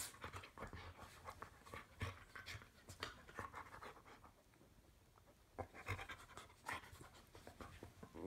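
Two dogs play-biting at each other's faces ("bitey face"): faint panting with short, soft snaps and mouthing sounds in irregular bursts, easing off for a second or so past the middle.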